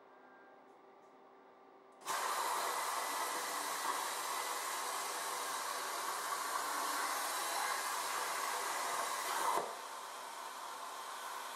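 A CNC plasma cutter's torch fires about two seconds in with a sudden, loud, steady hiss as the arc cuts thin sheet steel. After about seven seconds the arc cuts out, leaving a quieter hiss of air still flowing through the torch.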